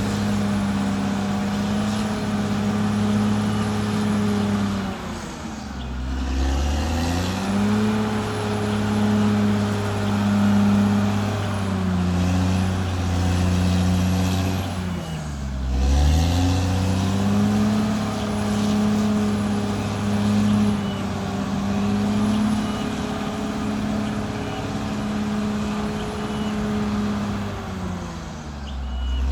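Caterpillar D6R XL bulldozer's diesel engine running steadily under load, its revs dropping sharply and climbing back three times, about ten seconds apart.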